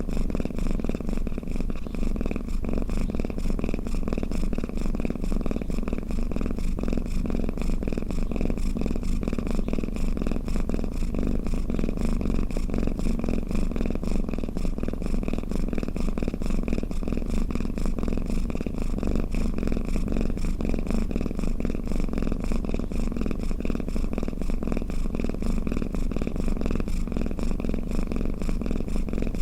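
A domestic cat purring, a steady, unbroken rumble.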